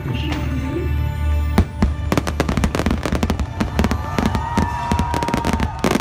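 Fireworks bursting in quick succession: a dense run of bangs and crackles starting about a second and a half in, with music playing underneath.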